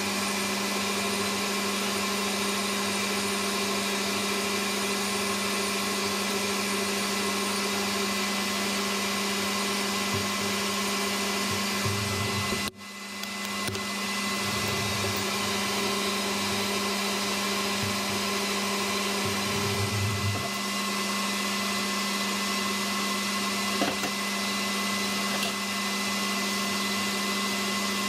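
Metal lathe running steadily, a constant motor and gear whine as a small part turns in the collet. About halfway through the sound cuts out abruptly and comes back within a second or two.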